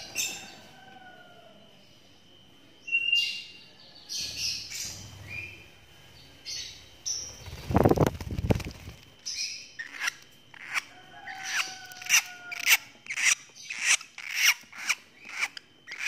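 Young lovebird chirping in short, sharp calls that come about twice a second in the second half. About halfway through, a loud rush of wings sounds close by as it flies.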